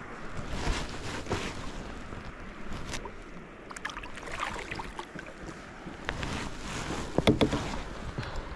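Kayak on the water: irregular knocks and splashes against the hull, the loudest cluster about seven seconds in, over wind on the microphone.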